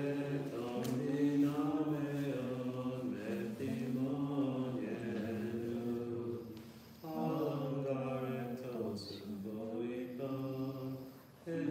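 Orthodox liturgical chant: voices slowly singing a hymn in two long phrases, with a short break about six and a half seconds in. A steady low note is held underneath.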